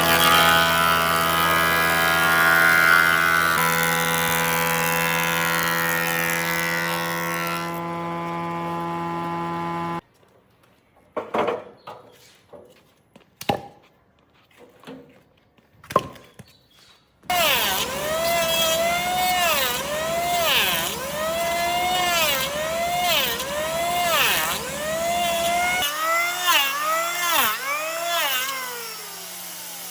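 Woodworking power tool running steadily, then a pause with a few knocks and clicks. Then a motor runs again, its pitch dipping and recovering about once a second as it is repeatedly loaded.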